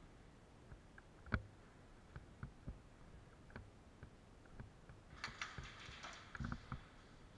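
Scattered light clicks and knocks from an airsoft player moving with gun and gear, one sharper knock about a second in. About five seconds in comes a short stretch of rustling and scuffing with clicks, followed by a few dull thumps.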